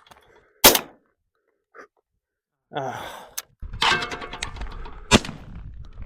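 Two shots from a Benelli Super Black Eagle 3 semi-automatic shotgun, about four and a half seconds apart, the first the louder. A steady low rumbling noise comes in about halfway through.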